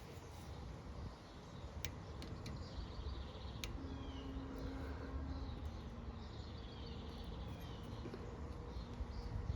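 Quiet outdoor background with faint bird chirps and a few light clicks.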